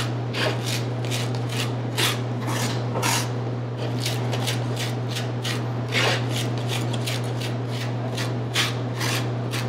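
Chef's knife (Wüsthof Grand Prix II 8-inch cook's knife) scraping garlic cloves and gritty kosher salt across a cutting board, working them into a paste: quick repeated rasping strokes, about two to three a second. A steady low hum runs underneath.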